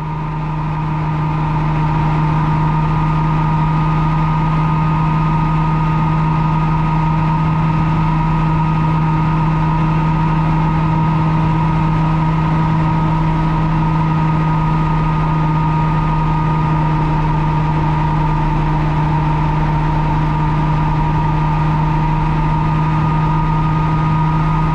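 Bell 47 helicopter heard from inside its bubble cockpit: a steady drone of the piston engine and rotor, with a constant rushing haze, fading up over the first two seconds.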